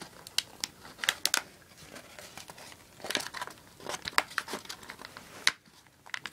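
Plastic packaging crinkling and crackling in irregular sharp snaps as it is worked and torn open by hand.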